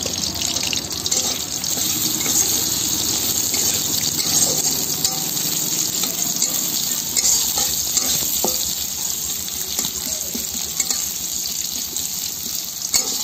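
Sliced onions sizzling in hot oil in a kadai, stirred with a spatula that scrapes and taps against the pan now and then.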